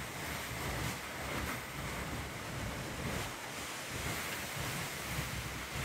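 Fiberglass canoe hull dragged over snow on a tow rope: a continuous hissing scrape with an uneven low rumble carried up through the hull.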